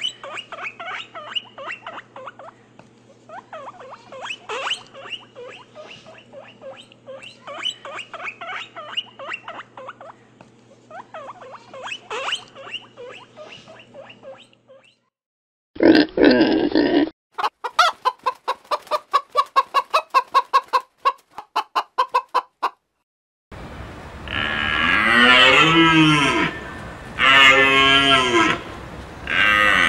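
A run of separate farm-animal calls. About fifteen seconds of short chirping calls sit over a steady low hum. Then comes a short loud call and a fast train of clucks, then long mooing calls from cattle in the last few seconds.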